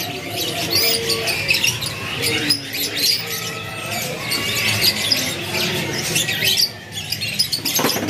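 Many caged canaries singing and chirping at once, a dense tangle of overlapping high trills and chirps.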